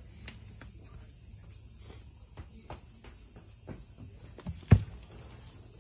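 A steady, high-pitched drone of cicadas from outside, with scattered light taps and one dull thump about three-quarters of the way through.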